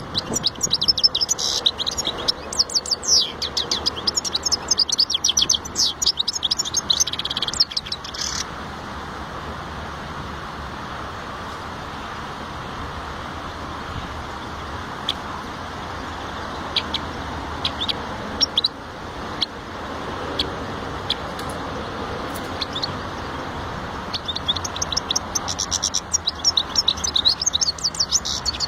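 European goldfinch singing: a fast, twittering song for about eight seconds, a few scattered chirps in the middle, then the song starts again near the end, over a steady background noise.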